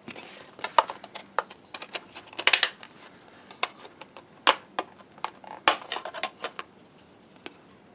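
Hands handling plastic and cardboard DVD packaging: a run of irregular clicks and taps, with a quick cluster about two and a half seconds in and single sharper knocks near four and a half and six seconds.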